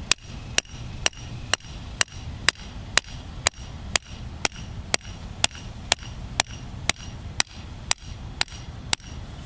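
Steel mallet swung two-handed onto the top of a steel stake, driving it into the ground: sharp metallic strikes in a steady rhythm of about two a second, each ringing briefly, stopping shortly before the end.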